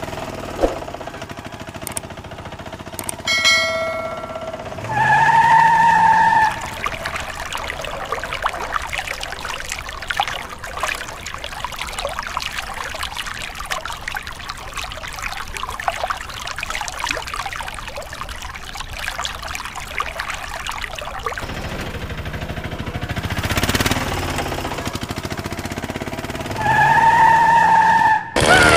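Water streaming from a small hose and splashing over a plastic toy auto rickshaw for most of the stretch. A short steady tone sounds once near the start and again near the end.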